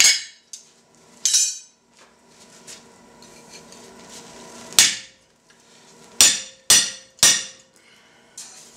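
Hammer blows driving a hand-held slitting chisel into a bar of red-hot steel on an anvil, over a soft annealed steel saddle, to slit an eye. Six strikes, the last three in quick succession about half a second apart, some leaving a short metallic ring.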